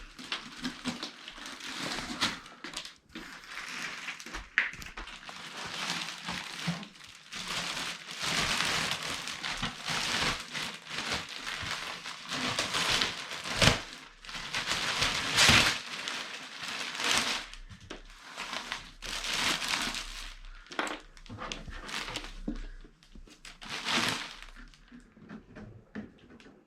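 Plastic and foam packaging being handled and pulled away from a boxed 3D printer: irregular crinkling and rustling with occasional sharp knocks.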